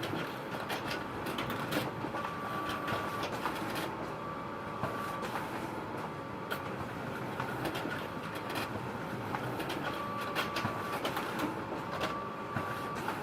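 Photocopier running: a steady mechanical whir with irregular clicks and knocks, and a faint high whine that comes and goes in stretches of about a second.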